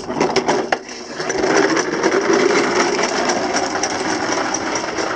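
Little Tikes toy push lawn mower clattering steadily as it is pushed over brick paving: a fast, dense plastic rattle from its wheels and mechanism that gets louder about a second and a half in.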